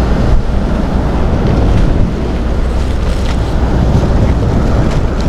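Strong sea wind buffeting the microphone: a loud, steady rumble and rush, with surf on the shore beneath it.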